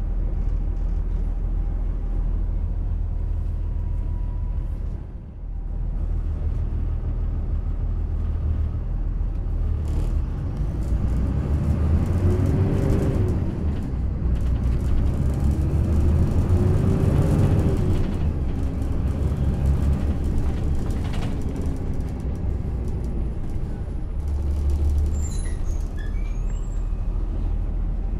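Yutong ZK6128HG low-floor city bus heard from inside while under way: a steady diesel rumble, with a drivetrain whine that rises and falls twice in the middle.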